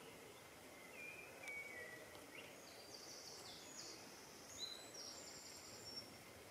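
Faint birdsong over quiet outdoor background: a few short whistled notes in the first half, then a string of higher, longer notes.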